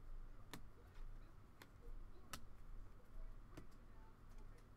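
Four sharp, irregularly spaced clicks and taps from trading cards and their packaging being handled on a table, over a low hum.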